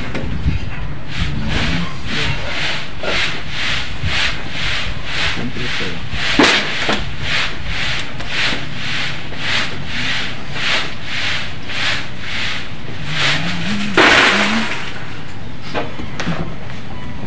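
Handsaw cutting through a piece of lumber: an even back-and-forth rasp of about two strokes a second, with a louder last stroke near the end before it stops. A steady low rumble runs underneath.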